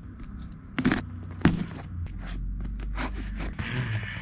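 Utility knife scraping and slicing along the taped edge of a cardboard box to open it, with a few sharp clicks and knocks as the box is handled.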